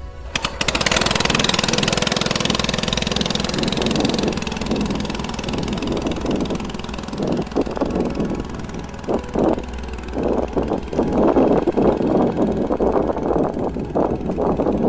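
A small boat's outboard engine running steadily. Uneven, choppy noise lies over it in the second half.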